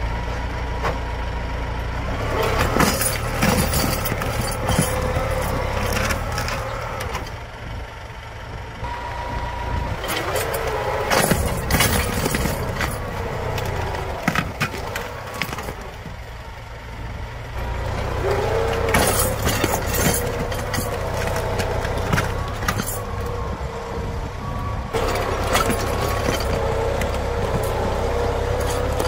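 Farm tractor's diesel engine running under load while pulling a mounted disc plough through dry ground, its pitch dipping and rising with the load. Repeated cracks and knocks come from the plough discs cutting through soil and roots.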